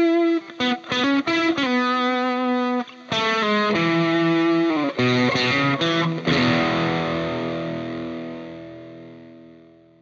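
Distorted electric guitar music: a riff of short picked notes and chords, ending about six seconds in on a held chord that rings out and fades away.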